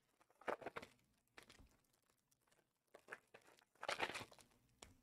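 Foil wrappers of Panini Mosaic basketball card packs crinkling as they are handled and torn open, in two short bursts, about half a second in and about four seconds in, with faint rustling between.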